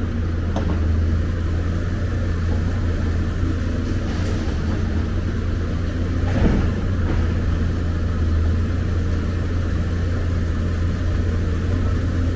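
Diesel engine of a Hyundai crawler excavator running steadily as the machine swings and digs in rubble, with a single short knock about six and a half seconds in.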